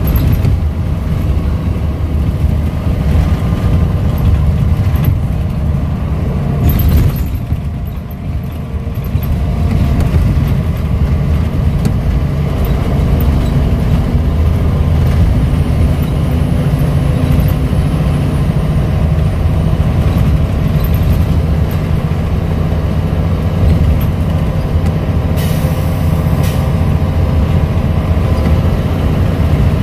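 Scania L94UB single-decker bus running on the road, heard from inside the saloon: a steady low engine and driveline rumble that eases briefly about eight seconds in, then pulls again. A brief hiss comes near the end.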